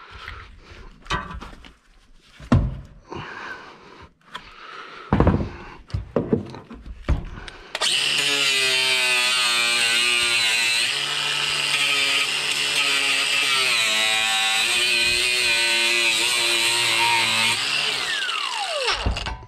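Scattered knocks and clatter of handling. About eight seconds in, an electric power tool's motor starts and runs steadily for roughly eleven seconds, its pitch wavering slightly under load, then winds down with a falling whine.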